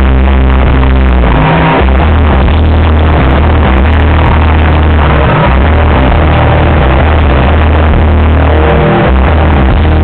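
Live band playing loudly on a concert stage, heard from the crowd through a phone microphone. The sound is overloaded and dominated by a heavy, pounding bass.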